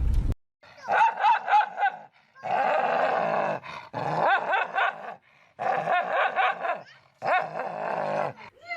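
A dog vocalizing back in five wavering, drawn-out bouts of about a second each, with short pauses between them.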